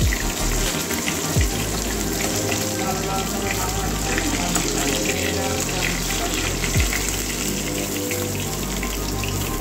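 Pieces of catla fish sizzling in hot oil in a metal kadai: a steady hiss with scattered small pops.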